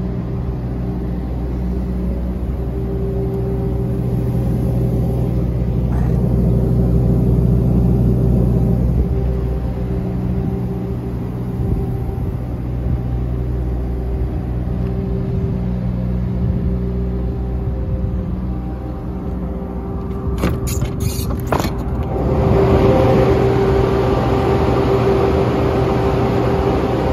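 Diesel engine idling steadily. About three-quarters of the way through comes a short run of metallic clicks and knocks, like a door latch being worked, after which the running sound grows louder and hissier.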